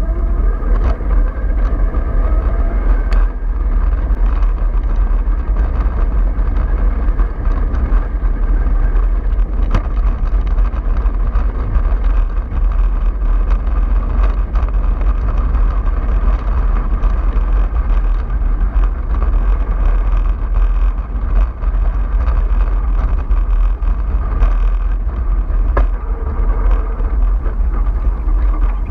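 A bus driving along at steady speed: a continuous low rumble with a faint whine above it and wind buffeting the microphone.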